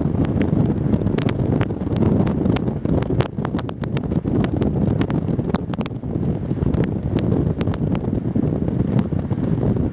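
Wind buffeting the microphone from a moving vehicle: a steady low rumble with many short crackles, over road and traffic noise.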